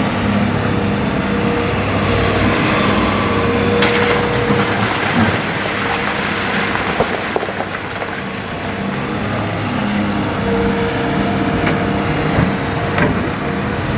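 Hitachi Zaxis 200-5 excavator's diesel engine running steadily under hydraulic load while it scoops river gravel, with a few sharp knocks of stone on steel at intervals.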